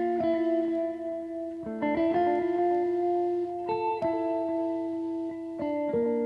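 Background music: sustained guitar-like chords that change about every two seconds.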